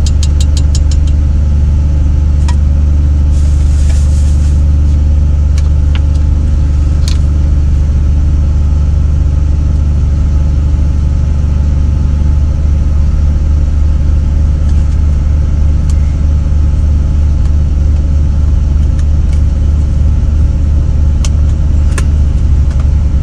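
Diesel engine idling steadily, a loud, deep, constant hum heard inside a semi truck's cab. A few light clicks and taps sit over it, including a quick run of ticks near the start.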